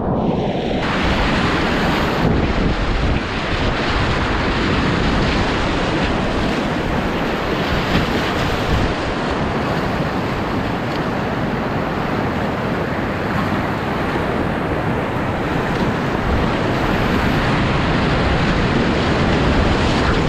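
Whitewater rapids rushing loud and steady around a kayak, with spray splashing over the camera.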